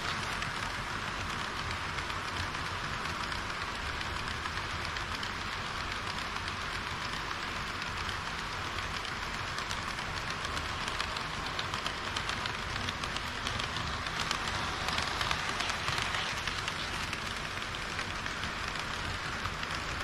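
HO-scale model trains rolling past on sectional track: a KiHa 40-series diesel railcar set and a train of tank wagons, their wheels giving a steady rattling whir over the rails. It grows louder for a moment about three-quarters through.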